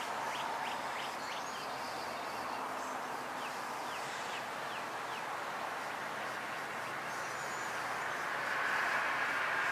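Outdoor rural ambience: a steady hiss of background noise with quick downward-sliding bird chirps in the first few seconds and a few faint, thin, high bird notes. A steady drone comes in and grows a little louder near the end.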